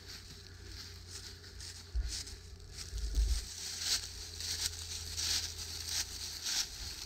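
Footsteps crunching through thick dry fallen leaves, about two steps a second from about two seconds in. Low rumbles on the microphone twice early in the steps.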